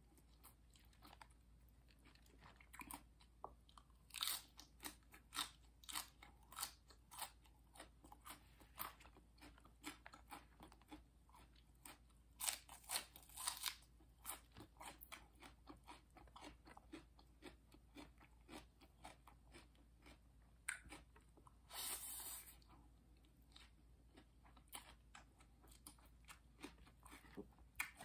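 A person chewing and biting crisp raw vegetables such as cabbage and green onion close to the microphone: quick, uneven runs of sharp crunches.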